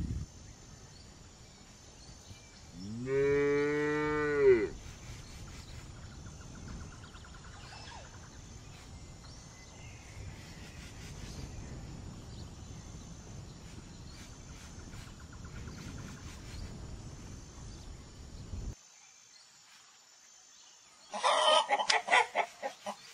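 A cow moos once, a single long call about three seconds in that rises and then falls in pitch. A faint steady outdoor rumble follows, and near the end hens cluck in a quick run of short bursts.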